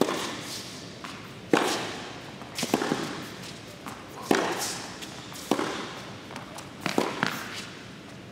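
Tennis rally on an indoor hard court: a ball struck back and forth with rackets and bouncing, a sharp hit every second or so, each with a short echo.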